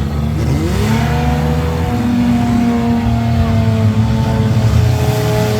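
Several minivan engines revving hard at once, their pitch climbing in the first second or so and then holding high.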